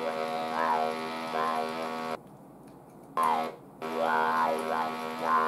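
Electrolarynx held against the throat: a flat, unchanging electronic buzz shaped into words by the mouth, standing in for a voice lost to throat cancer. It cuts off about two seconds in, comes back a second later, breaks briefly, then runs on.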